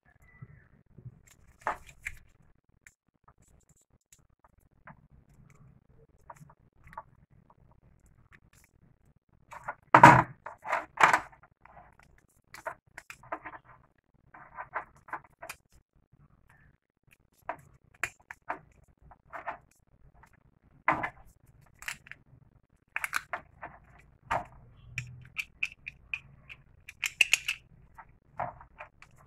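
Scattered small clicks and knocks of a plastic two-pin mains plug and a screwdriver being handled as the plug is fitted to a power cord, with a louder cluster of clicks about ten seconds in.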